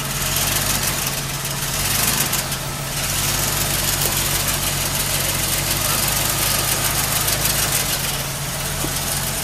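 Jeep Cherokee's engine running steadily at low revs as it crawls slowly over a rocky trail ledge.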